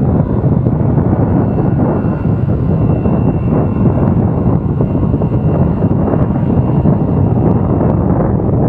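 Motorcycle riding along at road speed: a steady engine drone mixed with wind rushing over the microphone.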